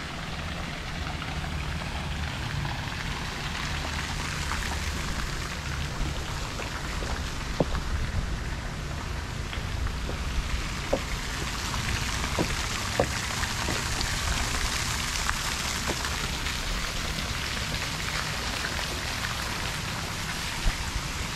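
Steady splashing of falling water from a swimming-pool fountain, heard as an even rain-like hiss, with a low steady hum underneath and a few sharp clicks in the middle.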